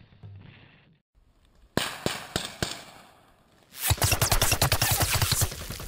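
Rifles firing blanks: a few single shots about two seconds in, then from about four seconds in a rapid, sustained burst of fire.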